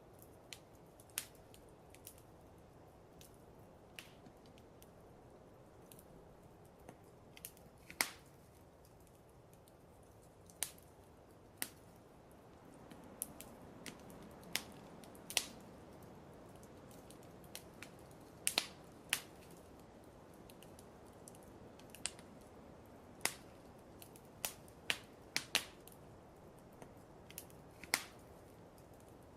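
Fireplace fire crackling: sharp, irregular pops and snaps at uneven intervals over a soft steady hiss.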